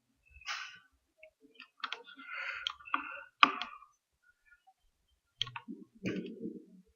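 Computer mouse and keyboard clicks: several separate sharp clicks spread out, with softer noise between them.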